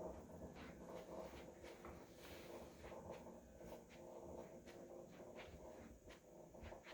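Faint, irregular clicks, roughly two a second, from a Tonal home gym's cable system: the clicking and popping noise that a cable reset is meant to cure.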